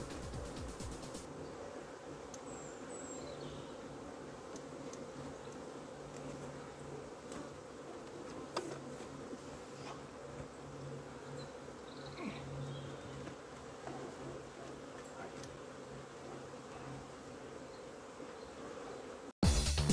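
A honeybee colony buzzing steadily around an opened Warré hive, with a brief knock about eight seconds in. The buzzing cuts off abruptly just before the end.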